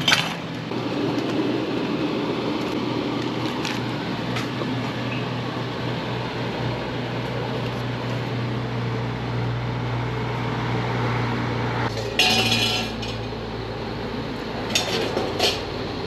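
Utensils and dishes clinking and knocking as a bowl of noodle soup is put together at a stall, with a few short clicks and a brief louder clatter about twelve seconds in, over a steady low hum.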